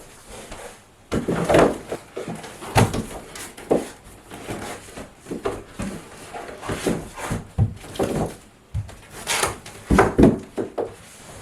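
A string of irregular knocks, bumps and clunks on wood, with the loudest knocks about a second and a half in, near three seconds and near ten seconds.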